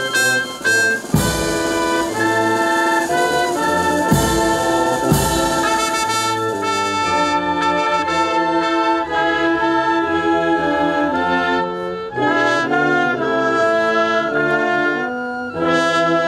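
Brass band playing sustained, chordal music, with a few drum strokes in the first five seconds.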